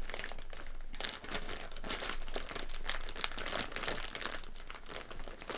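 Plastic Kit Kat candy packaging crinkling as it is handled: a dense run of crackles and rustles, busier from about a second in.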